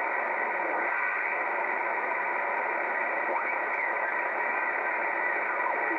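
Steady static hiss of shortwave band noise from an R-390A tube communications receiver tuned to the 20-metre amateur band, heard through its narrow audio passband between single-sideband transmissions.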